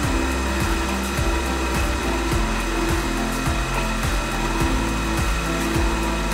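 Milling machine cutting steel: the spinning cutter plunges into the block with a steady grinding cut. A regular beat of background music runs underneath.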